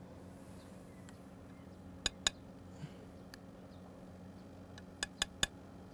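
Light clinks of utensils against plates and dishes as food is plated: two about two seconds in and a quick run of three near the end, over a faint low hum.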